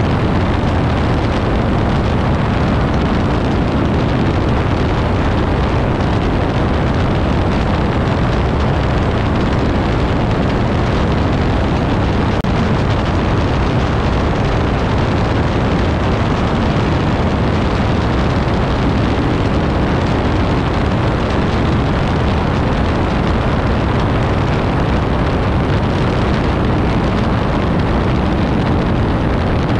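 Piper Pawnee tow plane's piston engine running steadily in flight, mixed with wind rush, on its return after the glider tow.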